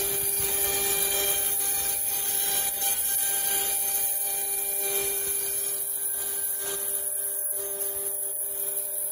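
CNC router spindle running with a steady whine while its bit carves a block, with the rasping, rubbing noise of the cut.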